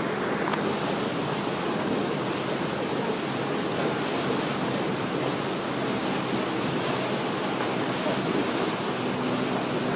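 Steady rushing of water mixed with wind buffeting the microphone.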